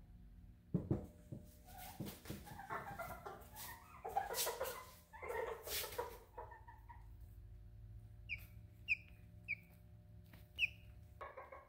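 Frizzle hen making low clucking calls mixed with a few knocks, then four short, high, downward calls near the end.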